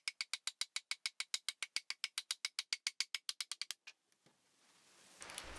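Hammer tapping a timber crossbeam down onto its post to seat the notched joint: a quick, even run of sharp taps, about eight a second, that stops about four seconds in.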